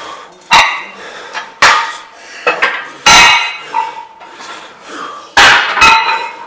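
Steel weight plates clanking against each other and the barbell sleeve of a Smith machine as plates are handled. There are about six sharp metallic clanks, each with a short ring, two pairs of them close together.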